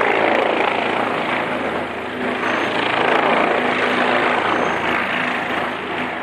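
Helicopter running close by, a steady loud noise of its rotor and engine with low droning tones.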